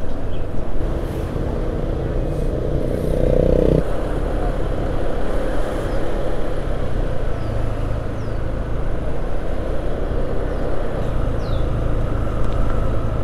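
Steady engine and road noise of a vehicle driving slowly through town, heard from on board, with most of the sound a low rumble. The sound changes abruptly about four seconds in.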